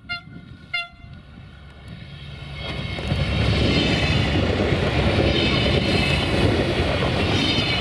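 Two coupled Siemens Desiro VT642 diesel multiple units approaching and passing at close range: two short horn toots near the start, then from about three seconds in the loud, steady noise of the diesel engines and wheels on the rails as the units go by.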